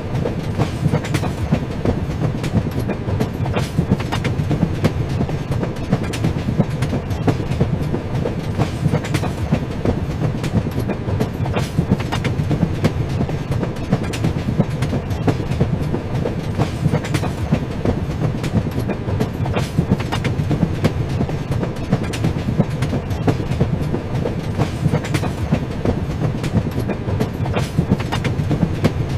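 Train running along the track: a steady low rumble with frequent sharp clicks and knocks of the wheels over the rails.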